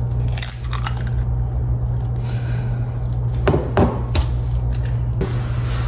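Kitchen dishes and utensils clinking and knocking, with a cluster of sharper knocks about three and a half seconds in, over a steady low hum.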